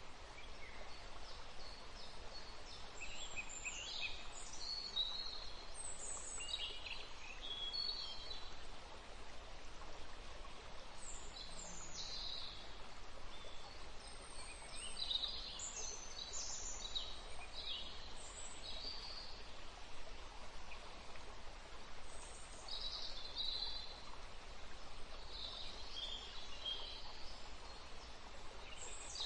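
Birds chirping and calling in short, high phrases every second or two over a steady, even hiss, a nature ambience track.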